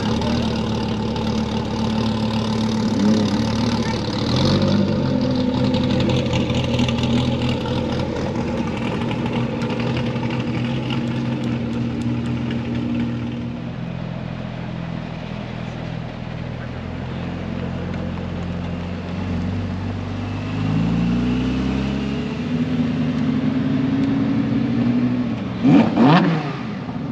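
Sports car engine running, its pitch stepping up with revs a few times, then a loud, sharp rev near the end.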